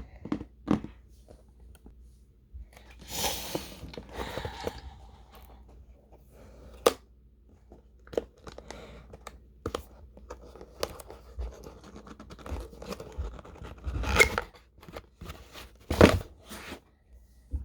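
Keyboard box being unpacked: tape or packaging being cut and torn, with cardboard and plastic scraping and rustling. A few sharp clicks and knocks come as the box parts are handled.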